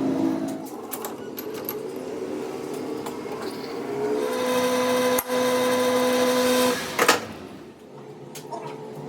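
An electric machine motor hums steadily for a few seconds and then stops abruptly, followed by a sharp knock, amid workshop clatter.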